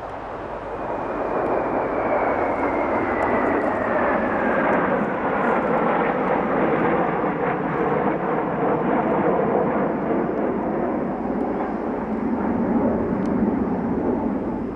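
A formation of Kawasaki T-4 jet trainers flying past with a steady jet engine rush. A high whine falls in pitch over the first few seconds as they pass. The sound fades near the end.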